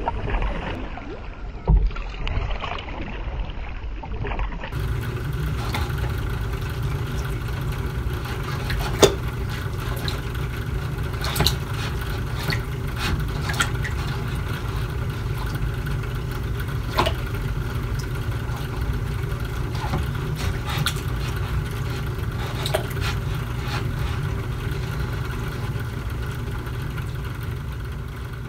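Canoe paddle strokes splashing in lake water for the first few seconds. Then a steady electrical hum with evenly spaced tones from a turtle tank's equipment, with a few sharp clicks through it.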